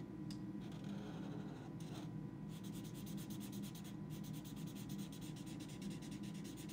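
Sharpie permanent marker scribbling on watercolour paper, colouring in a shape with rapid back-and-forth strokes that become quick and steady about two and a half seconds in.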